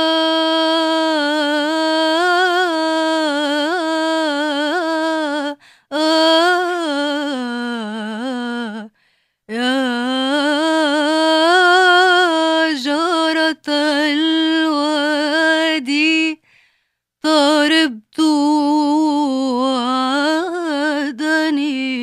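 A woman's soprano voice singing an Arabic song unaccompanied. She opens on a long held note, then sings ornamented, wavering runs with vibrato, broken by short pauses for breath.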